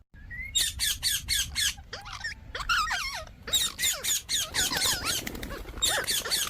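Indian ringneck parakeet giving a rapid series of short, shrill squawks and chattering calls, their pitch bending up and down.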